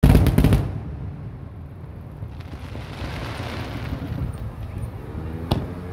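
Aerial firework shells bursting: a loud cluster of bangs at the start that trails off into a low rolling rumble, then another single sharp bang about five and a half seconds in.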